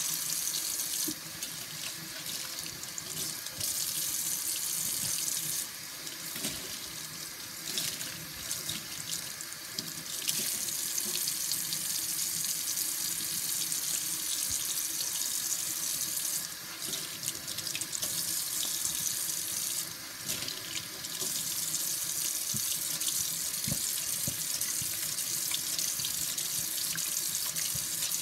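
Kitchen tap running into a stainless steel sink, the stream splashing as a hand rinses and wipes the basin. The splash dips in loudness several times as the hand moves in and out of the stream.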